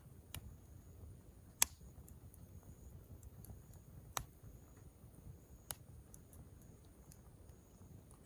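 Campfire of split firewood crackling: a handful of sharp, isolated pops, the loudest about a second and a half in, over a low rumble and a faint steady high-pitched hum.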